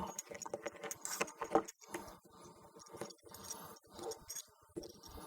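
Faint, irregular metallic clicking and jingling of small hand tools and fittings as an Allen wrench is worked on the paramotor cage's netting hardware.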